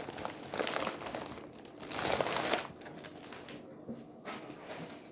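Plastic candy wrappers and packets crinkling as a hand rummages through a bag of candy, in irregular bursts: louder at the start and again about two seconds in, then lighter rustling.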